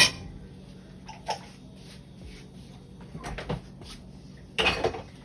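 Kitchen utensil sounds at a cooking pot: a sharp knock at the start, a few faint taps, and a brief scrape near the end.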